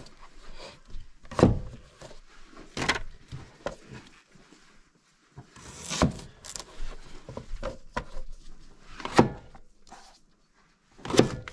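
Chef's knife slicing through raw potatoes and knocking on a plastic cutting board. Several sharp chops come at uneven intervals a second or more apart.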